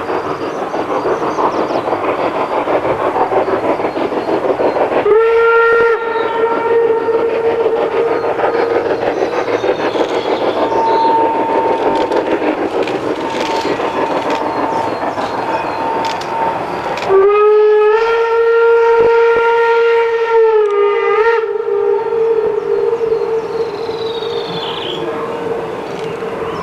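Steam locomotive 24 009, a two-cylinder 2-6-0, chuffing as it hauls a goods train, and sounding its steam whistle: a long blast about five seconds in and a second, louder one about seventeen seconds in that dips slightly in pitch before fading.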